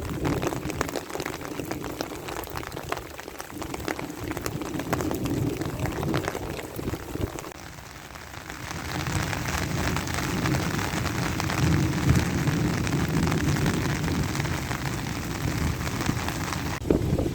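Heavy rain pattering down, a dense hiss of many drops, easing briefly about halfway through and then coming on louder.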